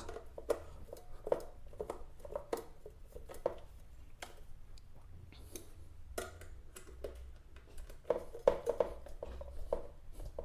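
Screws being tightened with a screwdriver into a metal fan base and post: scattered small clicks, taps and clinks of metal, busiest near the end, done to keep the stand from vibrating.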